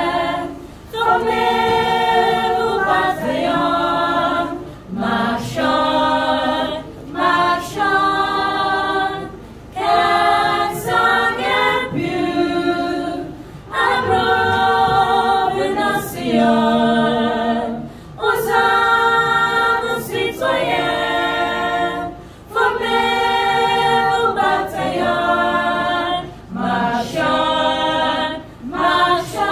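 A group of young men and women singing together a cappella, in held phrases of about two seconds with short breaks for breath between them.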